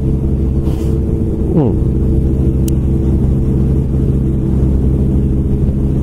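Kawasaki motorcycle engine running at steady cruising speed, heard from the moving bike, with a steady low engine hum and road and wind noise. One brief falling sweep in pitch about a second and a half in.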